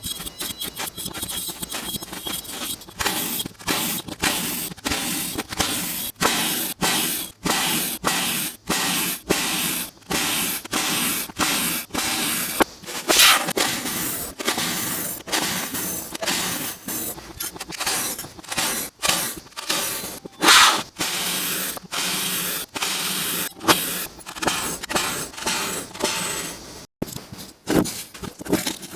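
Kinetic sand being worked by hand and tool, a run of crisp, crunchy strokes about one or two a second, with a couple of louder ones partway through.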